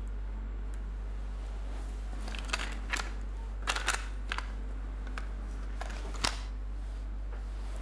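Sharp plastic clicks of a cassette tape being handled and loaded into a portable cassette player, about half a dozen scattered clicks, the last one a couple of seconds after the rest. A steady low hum runs underneath.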